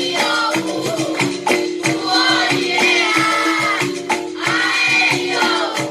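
A children's capoeira song playing: sung vocals over a steady percussion rhythm with tambourine-like jingles and a repeating low pitched note.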